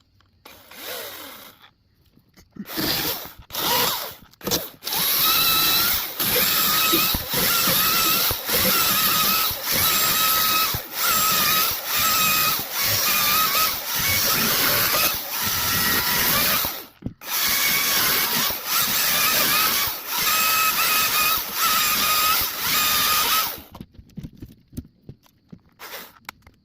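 DeWalt 60-volt top-handle battery chainsaw: a few short trigger blips, then the electric motor runs with a steady whine for about twenty seconds while cutting, dipping in level about once a second and pausing briefly partway. It stops sharply, and one last short blip follows.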